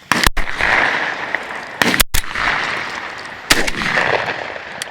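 Shotguns firing at an incoming dove: several sharp shots, two of them close together about two seconds in, each trailing off in a long echo across the open field.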